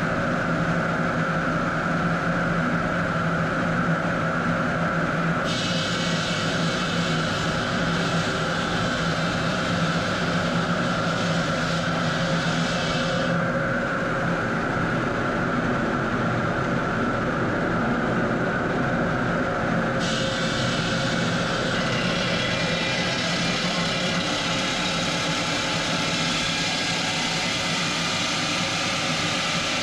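Steady drone of marble-cutting machinery running, a constant hum with a higher hiss that comes and goes abruptly several times.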